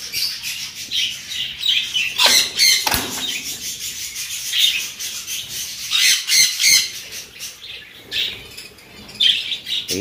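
A flock of caged budgerigars chattering and squawking, with high-pitched calls throughout and some wing flapping.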